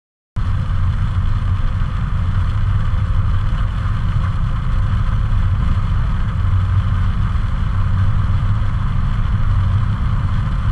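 Driving noise heard from inside a van's cabin on a wet motorway: a steady engine and road rumble with a tyre hiss over it. It cuts in abruptly just after the start.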